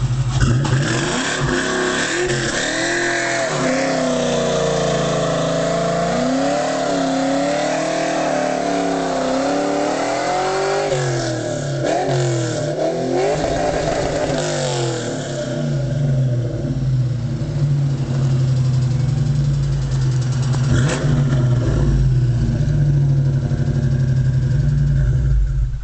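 Ford Mustang engine with a broken connecting rod and spun bearing revved hard and held at high revs during a burnout, its pitch wavering for about ten seconds, then dropping and swinging before settling to a steadier lower note; the damaged engine keeps running without blowing. The sound cuts off abruptly at the very end.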